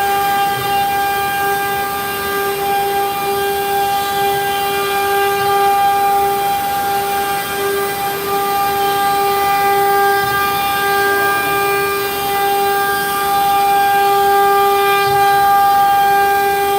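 CNC router spindle running at a constant high speed while carving a wooden door panel: a steady, unchanging whine over a hiss of cutting.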